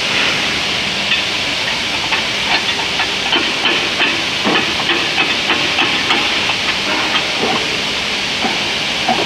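Capstan winch working a steel wire-rope sling: a steady hiss with many irregular clicks and knocks.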